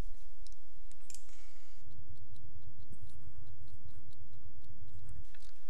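Computer mouse clicking, a string of separate clicks a fraction of a second to a second apart, as points of a selection outline are placed one by one.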